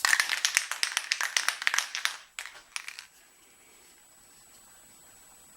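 A quick, dense run of crinkling and clicking handling noise for about two seconds, then a few separate clicks, then quiet room tone.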